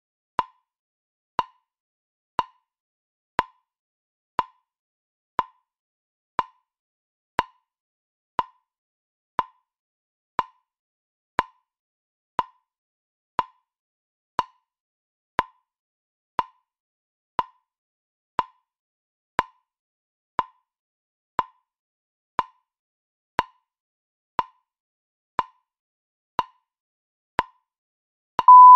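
Short electronic clock ticks, one each second, every tick a brief pip ringing at the same pitch, followed near the end by a long steady beep at that pitch that marks the end of the count.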